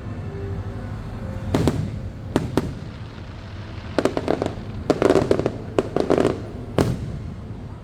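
Fireworks bursting overhead in a string of sharp bangs: a few single reports, then a rapid crackling flurry in the middle, then one more bang near the end.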